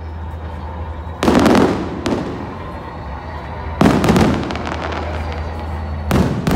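Aerial firework shells bursting in a display: three loud booms about two and a half seconds apart, each followed by crackling.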